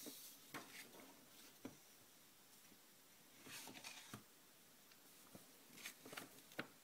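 Soft paper rustles and light taps as sheets of paper are handled and turned over, coming in several short bursts with a sharper tap near the end.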